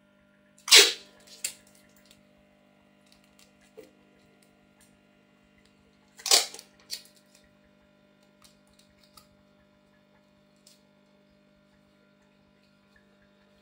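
Plastic aquarium background film being pressed and smoothed by hand onto the tank's back glass: two sharp swishes, about a second in and about six seconds in, with a few light crinkles and taps between. A faint steady electrical hum runs underneath.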